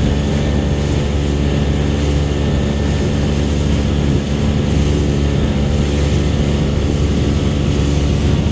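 Small fishing boat's engine running steadily under way, a constant hum.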